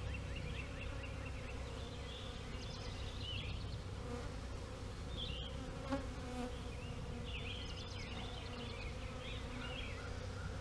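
Many honey bees buzzing together in a steady, continuous hum around an opened hive and a frame covered in bees.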